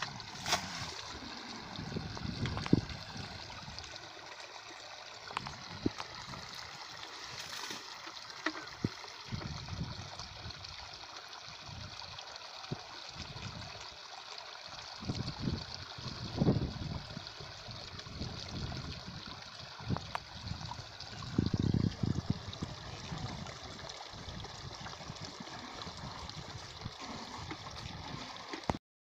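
Shallow water trickling steadily, with hands splashing and sloshing in it now and then. The sound cuts off suddenly near the end.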